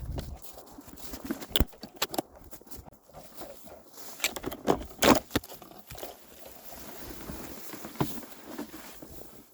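Footsteps pushing through pathless brush and undergrowth, with leaves rustling and twigs cracking at irregular moments; the loudest cracks come about a second and a half in, around five seconds in and about eight seconds in.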